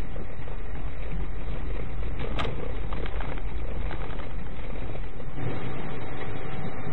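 Steady rumble of a car's engine and road noise heard from inside the cabin through a dashcam microphone, with a single short click about two and a half seconds in.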